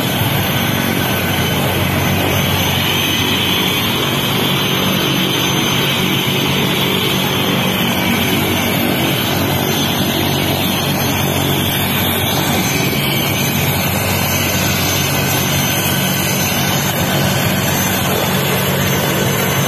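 Rescue helicopter running on the ground with its rotor turning: a steady, loud engine and rotor noise that holds unchanged throughout.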